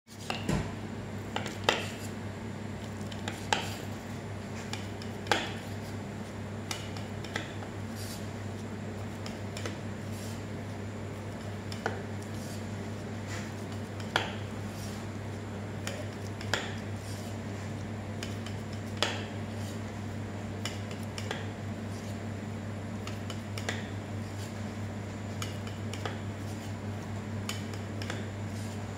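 A kitchen knife tapping against the work surface each time it cuts through the soft semolina-and-cheese rolls. There is a sharp click every two to three seconds over a steady low hum.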